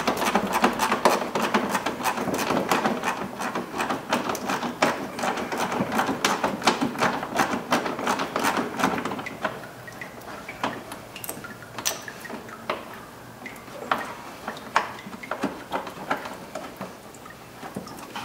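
Ratchet with a 10 mm socket clicking as a washer-bottle mounting bolt is backed out: rapid, dense clicking for about the first half, then slower, scattered clicks.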